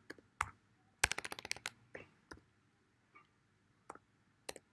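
Typing on a computer keyboard: a quick run of keystrokes about a second in, then a few scattered single key taps.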